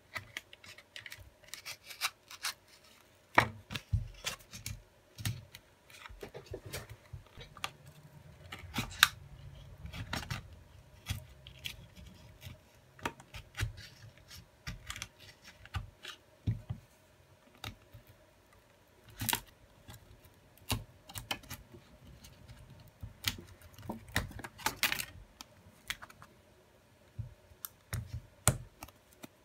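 Irregular clicks, scrapes and rubbing as a Huawei Nova 7 5G smartphone's display is pried loose from its frame by hand. A few sharper clicks stand out among the quieter scratching.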